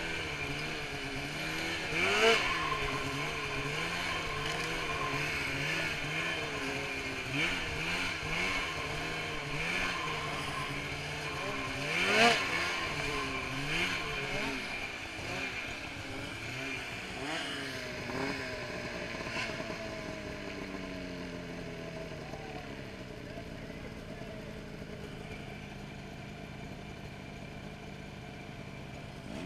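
Polaris Switchback Assault snowmobile's two-stroke engine, breathing through a Bikeman Velocity Trail Can aftermarket exhaust, rising and falling in pitch as the throttle is worked on the trail. There are two sharp revs, about two seconds in and about twelve seconds in. Over the last ten seconds it settles and eases down in pitch.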